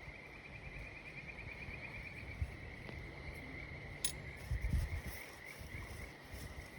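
An insect trilling steadily at a high pitch over a low rumble, with a single sharp crackle from the campfire embers about four seconds in.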